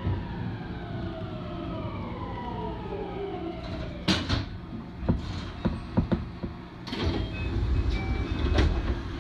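An electric train's motor whine falling in pitch as it brakes to a stop at a platform, over a low running rumble. A few seconds in, the falling tone gives way to a sharp hiss of air, then several knocks and clunks, like the brakes setting and the doors opening.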